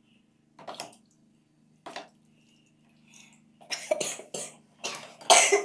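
Water splashing and dripping as plastic shower parts are lifted out of a basin of soaking liquid with pliers. It comes in several short separate bursts, the loudest near the end.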